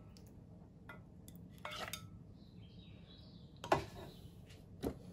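A metal serving spoon scrapes and clinks against a stainless steel pan as thick curry is scooped out. There are a few separate knocks, the loudest almost four seconds in.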